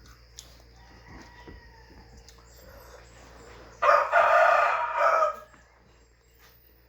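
A rooster crowing once, about four seconds in, lasting about a second and a half.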